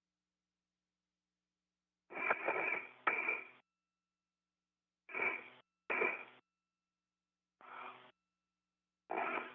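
Astronaut's breathing picked up by the spacesuit microphone and heard over the space-to-ground radio loop, in about five short bursts that cut in and out with dead silence between them.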